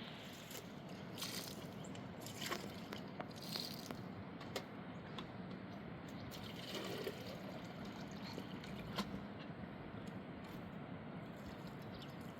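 Water running and splashing, with a steady rush underneath and many short splashes and clicks scattered through it.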